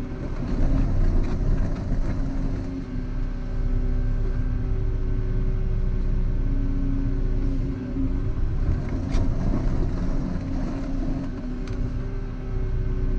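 Volvo EC140EL excavator's diesel engine running under working load, its note shifting slightly as the hydraulics work. Two sharp knocks come in the second half.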